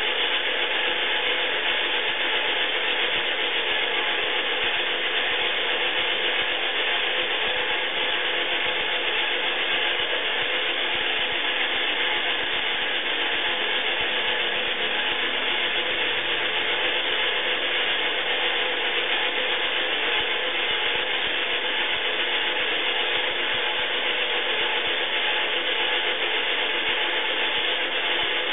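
Iriza toy washing machine's small battery-powered motor and gear train running steadily, turning the drum with water and laundry in it during the wash.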